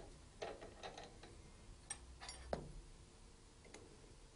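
Light metallic clicks and clinks of steel spacer rings being fitted onto a spindle moulder's spindle, about half a dozen spread over a few seconds. The loudest is a duller knock about two and a half seconds in.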